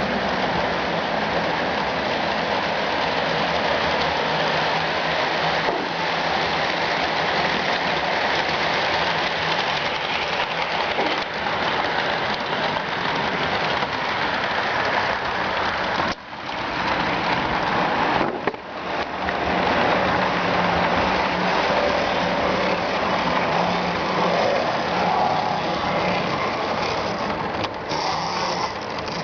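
HO scale model trains running on the layout: a steady rolling rush of wheels on rail with a faint motor and gear hum, which dips briefly twice a little past the middle.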